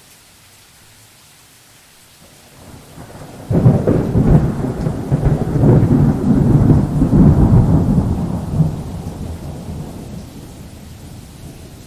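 Thunder over steady rain: a low build-up, then a sudden sharp clap of thunder about three and a half seconds in, followed by several seconds of loud rumbling that slowly fades.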